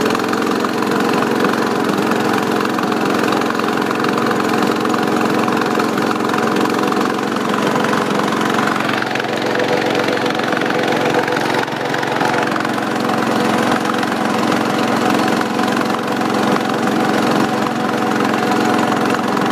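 John Deere 214 garden tractor's single-cylinder Kohler engine running steadily as it warms up, with an even, unchanging tone.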